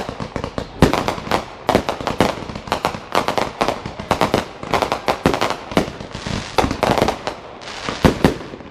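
Fireworks going off: rapid clusters of sharp bangs and pops, several a second, with short pauses between volleys.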